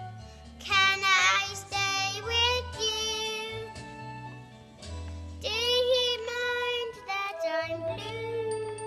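A children's song: singing over instrumental accompaniment, sung notes with vibrato above steady bass notes.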